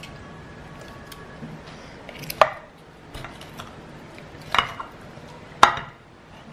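Kitchen knife and fork carving a whole roast chicken in a glass baking dish, the metal clinking sharply against the glass: a few light taps, then three louder clinks, one about two and a half seconds in and two near the end.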